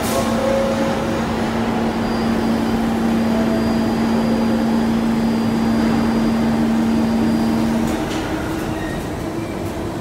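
New York City subway train standing at the station platform, its equipment humming steadily; the hum cuts off about eight seconds in.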